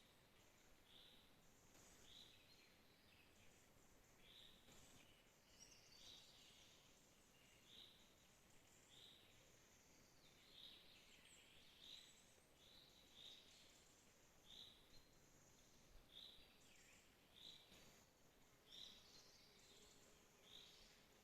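Faint birdsong: a short high chirp repeated about once a second, with thinner, higher calls from other birds behind it.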